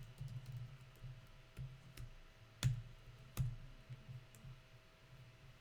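A few sharp clicks, the two loudest about two and a half and three and a half seconds in, over a faint steady low hum.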